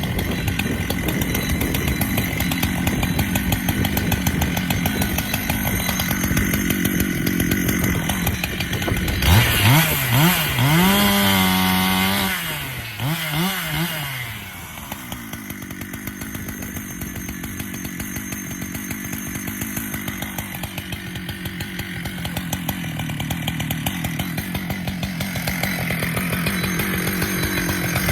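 Husqvarna two-stroke chainsaw running. About a third of the way in it revs up to a high whine, holds briefly, then drops back and runs more quietly at a lower, steady speed.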